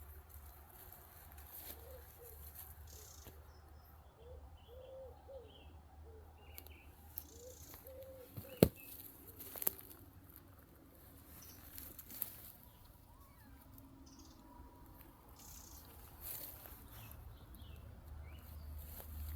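Faint outdoor sounds: a series of short, low bird calls in the first half, with light rustling and scattered clicks. The loudest thing is one sharp click about eight and a half seconds in.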